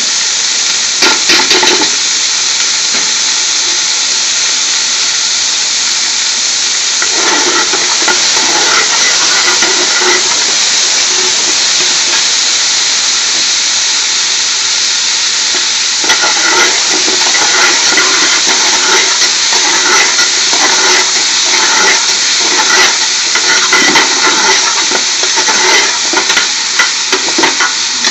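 Chopped onions and garlic sizzling steadily in hot oil in a large metal pot. A metal spoon stirs and scrapes through them in spells, briefly about a second in, again from about seven to ten seconds, and for most of the second half.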